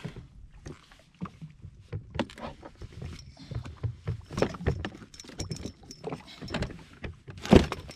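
Irregular clicks, taps and knocks of a landing net and a caught snapper being handled on a jet ski as the fish is freed from the mesh, growing busier after about four seconds, with a loud knock near the end.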